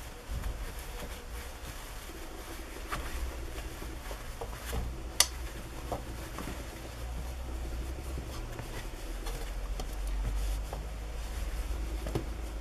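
Cotton fabric rustling and brushing as a sewn fabric bag is turned right side out by hand, with scattered small clicks and one sharp click about five seconds in. A steady low hum sits underneath.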